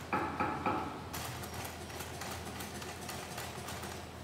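Industrial post-bed sewing machine with a roller foot stitching the edge of a patent-leather shoe upper. A few slower pulses in the first second, then a fast, even run of stitching ticks.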